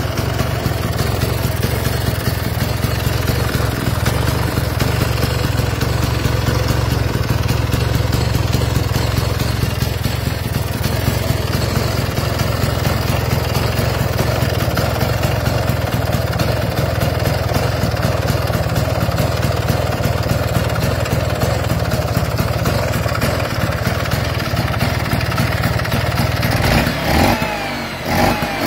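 Freshly overhauled vintage Vespa two-stroke single-cylinder engine running steadily. Near the end the revs rise and fall briefly.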